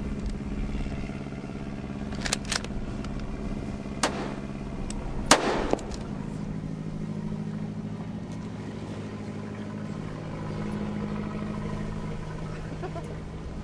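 Boat engine running steadily aboard a whaling trawler, with a few sharp clicks and one loud sharp bang about five seconds in.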